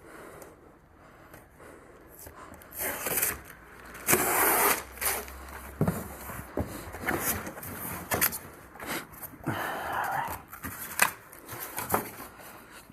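Irregular scraping, knocks and rustling of a household appliance being handled and shifted during installation, loudest about four seconds in.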